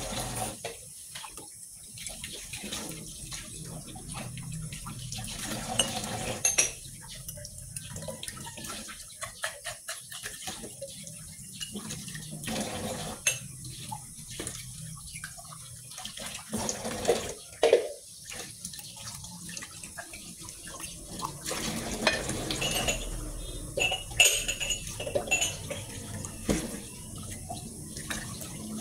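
Tap water running into a kitchen sink while glasses, a jar and ceramic mugs are rinsed by hand, with irregular clinks and knocks as the dishes are handled and set down.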